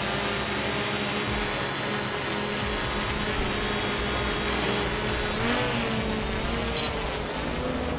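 DJI Mavic Pro quadcopter in flight, its four motors and propellers giving a steady high-pitched whine. The pitch swells and bends a little over halfway through and again near the end as the drone manoeuvres.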